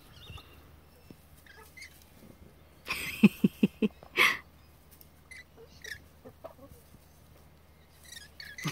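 Hen cackling: a quick run of about five low clucks about three seconds in, ending in one longer, harsher squawk, with a few faint chirps and clucks after; the cackle starts again at the very end.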